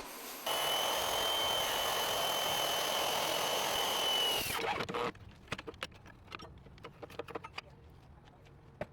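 An electric power tool running steadily with a high whine for about four seconds, then shutting off, followed by faint scattered clicks and taps.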